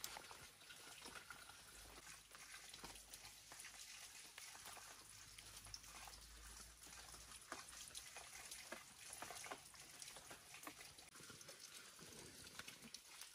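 Faint, irregular crackling and ticking of a small freshly lit wood and bamboo fire catching.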